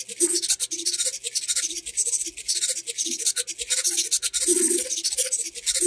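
A bank of small hobby servomotors whirring in quick succession as their plastic arms press the number keys of a computer keyboard, giving a continuous rapid clatter of keystrokes mixed with short motor buzzes.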